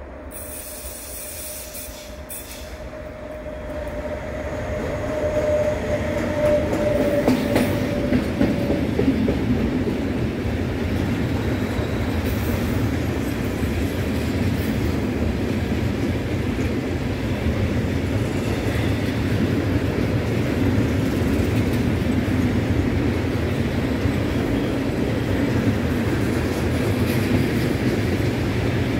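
Freight train of tank wagons hauled by a DB Class 185 (Bombardier TRAXX) electric locomotive passing close by. It grows louder as it nears, and a steady tone drops slightly in pitch and fades about nine seconds in. Then comes the continuous rolling rumble and clatter of the wagons' wheels on the rails.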